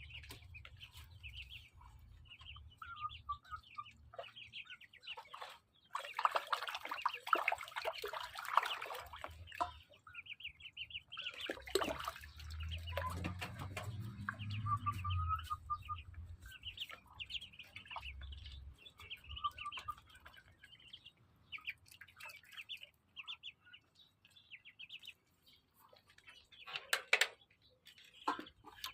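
Ducklings peeping in quick runs of short, high chirps, with bursts of water splashing as they bathe; the longest splashing comes about six seconds in, and there is a short loud splash near the end.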